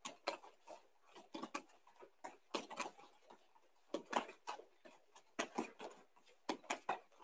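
Bare feet stepping and slapping quickly on judo tatami mats during fast turning-in footwork: faint, irregular thumps, several a second.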